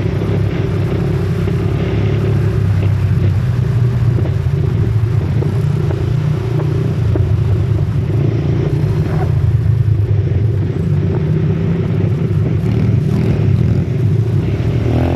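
ATV engine running steadily while riding, a continuous low engine hum.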